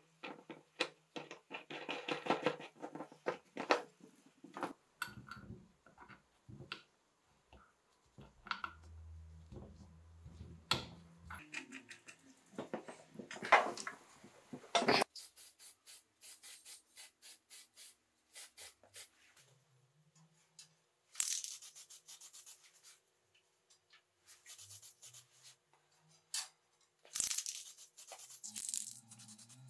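Hand tools working on the metal clutch drum and pulley of a 1969 Motobecane moped engine: irregular clicks, clinks and scraping, loudest in a rasping stretch about halfway through. Two short hissing stretches follow near the end.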